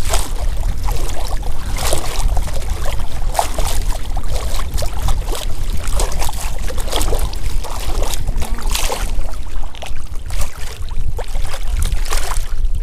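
Steady wind rumble on an action camera's microphone, with water splashing and sloshing in a shallow bay as a small hooked fish is reeled to the surface and lifted out.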